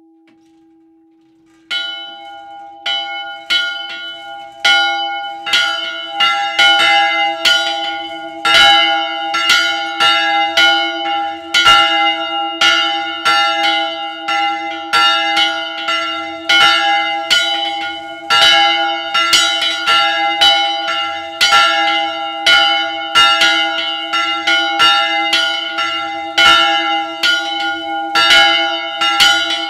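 Swinging bronze church bells in a wooden belfry. A faint hum hangs on at first; about two seconds in, one bell starts striking. More bells join a few seconds later, and their uneven, overlapping clapper strokes build into a loud peal.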